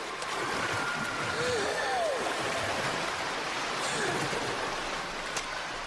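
Steady splashing and churning of pool water from a swimmer's freestyle stroke, with a few short rising-and-falling voice calls over it.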